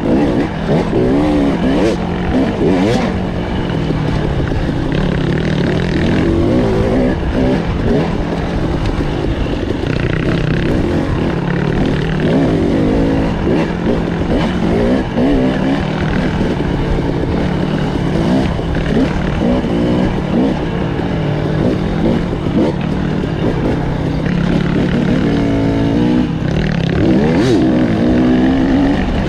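Off-road motorcycle engine under way, its pitch rising and falling again and again as the throttle is worked, with a sharp climb in revs near the end.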